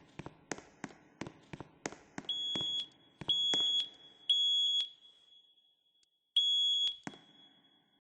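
A run of sharp clicks at about three a second, then a smoke alarm's sounder beeping at a high pitch. There are three half-second beeps, a pause, and a fourth, in the temporal-three pattern of a smoke alarm sounding during a test.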